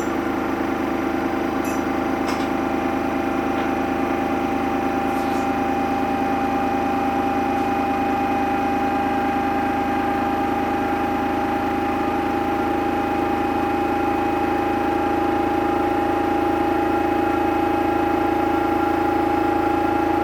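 Samsung washing machine running mid-cycle: a steady motor whine over a low hum, growing slightly louder, with a few faint clicks about two and five seconds in.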